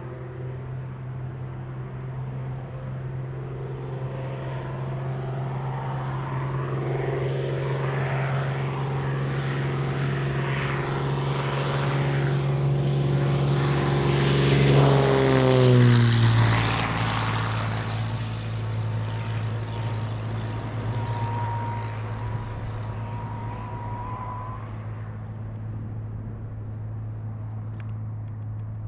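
Single-engine Piper PA-46 Malibu-series aircraft at takeoff power: the engine and propeller drone grows louder as it runs down the runway toward the listener, drops sharply in pitch as it passes a little over halfway through, then fades as it climbs away.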